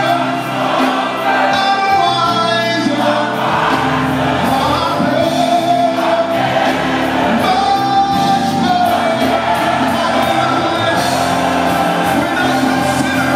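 Live gospel music: a man sings lead into a microphone with a choir and band behind him.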